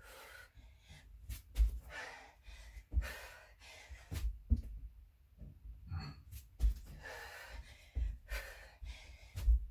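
A woman breathing hard while doing burpees, with low thuds every second or so as her hands and feet land on the exercise mat over a carpeted floor.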